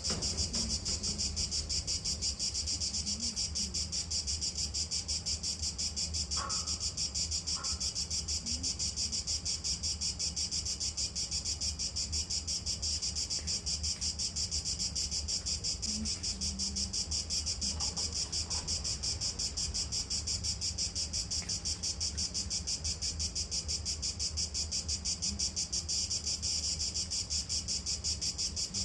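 Insects singing outdoors in a steady, high-pitched, fast-pulsing drone that never lets up.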